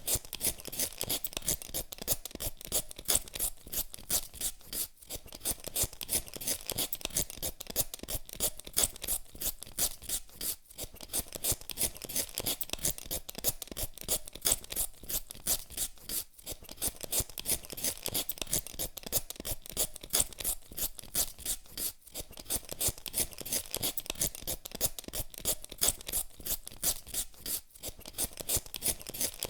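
Hand vegetable peeler scraping the skin off a potato in quick, repeated strokes, with a brief pause about every six seconds.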